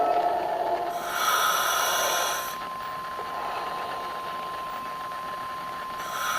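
Two bursts of hissing noise, about a second in and again near the end, each lasting about a second and a half, over a thin steady high tone. A ringing tone fades out at the start.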